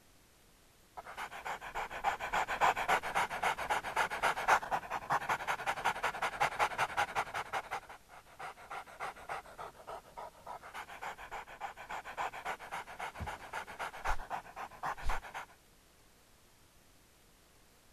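A dog panting fast and rhythmically, dropping in level for a couple of seconds midway, with a few low thumps near the end before it cuts off suddenly.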